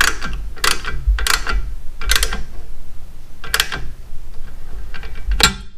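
Ratchet of a torque wrench clicking in short strokes as a bolt is run down, about seven bursts at uneven intervals.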